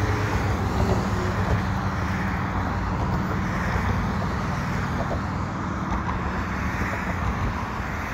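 Steady road traffic on a highway, with cars passing close by in slow swells.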